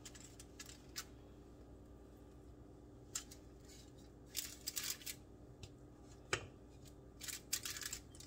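Faint scattered clicks, taps and rustles of cake pans and foil being handled as baked cake layers are turned out, with one sharper tap about six seconds in.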